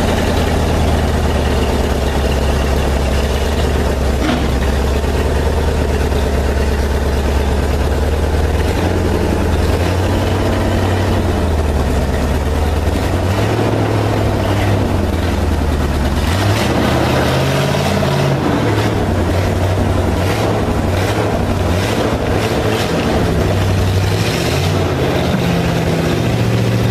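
An engine idling with a steady low drone, its speed shifting slightly a few times, with some light clatter near the middle and near the end.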